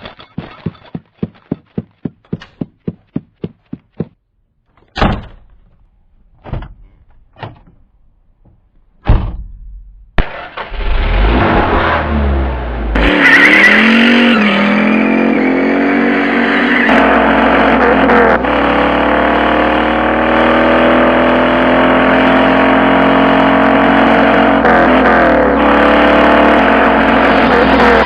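Sound-effect sequence: a run of quick, evenly spaced taps and a few single sharp knocks, then a car engine starting about ten seconds in. The engine revs up with a rising pitch, then keeps running at speed with the pitch rising and falling.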